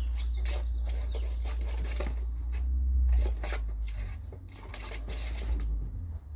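Rustling and light scratching from a racing pigeon being handled, over a steady low rumble that is loudest about three seconds in and eases after about four seconds.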